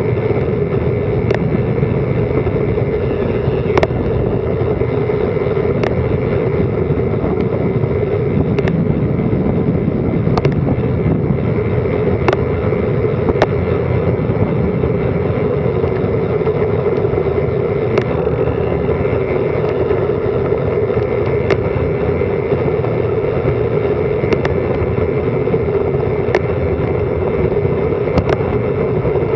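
Steady wind and tyre noise of a bicycle descending a mountain road at speed, picked up by an action camera's microphone, with sharp ticks every second or two.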